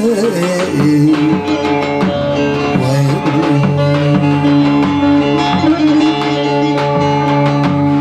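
Turkish folk music on bağlama (saz) and darbuka, with the bağlama playing a melody over darbuka strokes and long held notes underneath. A sung note trails off right at the start.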